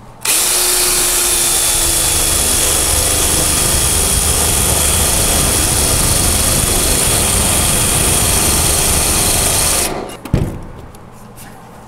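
Ryobi cordless drill with a 3/8-inch bit boring through two layers of sheet metal, a dash patch panel and the support beneath it, to make rosette-weld holes. It runs steadily for about ten seconds with a faint high whine, then stops suddenly, and a single knock follows.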